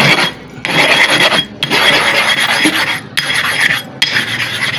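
A hard sharpening stone being scraped back and forth by hand against an abrasive surface to flatten it: a gritty rasp in about five strokes of roughly a second each, with brief pauses between them.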